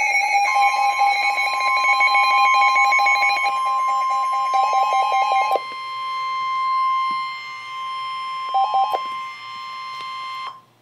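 Emergency weather alert warning tone: a steady high tone lasting about ten seconds that cuts off abruptly near the end. Over it, a lower alarm beeps rapidly for the first five or so seconds and again briefly around nine seconds in.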